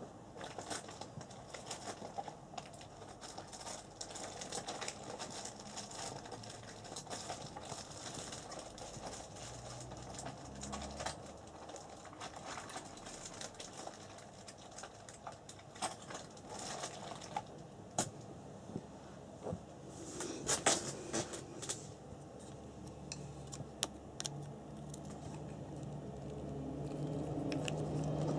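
Light rubbing and scraping with scattered sharp clicks of small parts being handled while an RC buggy's plastic gearbox is worked on, with a brief flurry of louder clicks about two-thirds of the way through. A faint low hum comes in near the end.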